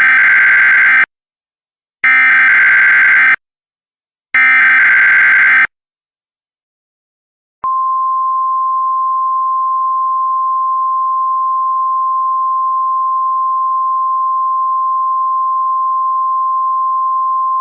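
Emergency Alert System signals: three buzzing digital SAME header bursts, each about a second long and a couple of seconds apart. About two seconds after the last burst, a steady single-pitched alert tone starts and holds unbroken for about ten seconds.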